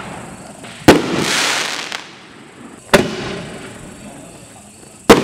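Mad Ox OX319 Raging Bull 5-inch 60 g artillery shells firing in sequence: three loud reports about two seconds apart, each dying away slowly. The first is followed by about a second of hiss.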